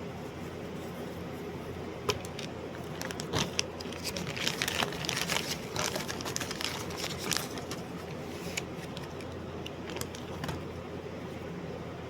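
Steady low hum, with a spell of rustling, crinkling and sharp clicks in the middle, densest for a few seconds around the midpoint, like something being handled close to the microphone.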